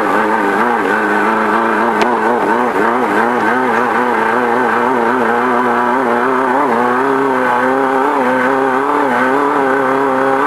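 Off-road desert race car's engine running hard, its pitch wavering up and down continuously with throttle changes, over a steady rush of noise, with one sharp click about two seconds in.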